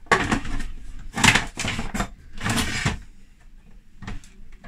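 Plastic food processor bowl and lid being fitted and locked into place: several short clattering bursts in the first three seconds, then a couple of light clicks.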